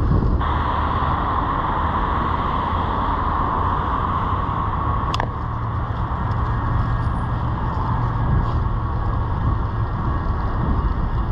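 Wind rushing over the microphone and steady tyre hiss from a bicycle riding on wet pavement, with one sharp click about halfway through.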